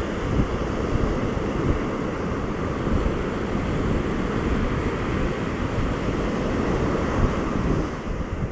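Atlantic surf breaking and washing up a sandy beach at a spring-tide high water, a steady rushing wash. Wind buffets the microphone underneath.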